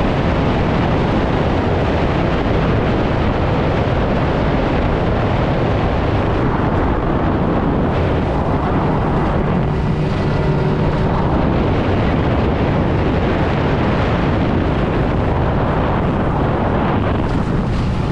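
Wind buffeting the microphone over the steady running of a 20-foot Carolina Skiff underway on open water.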